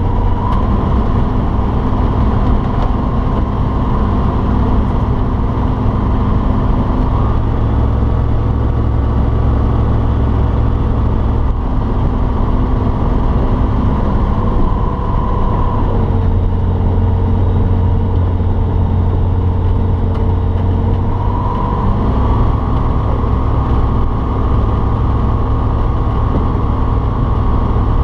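Light aircraft's piston engine and propeller running steadily, heard from inside the cockpit. The engine speed shifts a little a few times: it drops for a stretch past the middle, then picks back up.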